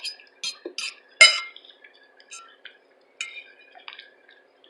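Eating sounds close to the microphone: a few scattered sharp clicks and clinks, like cutlery on a plate and mouth noises, the loudest about a second in.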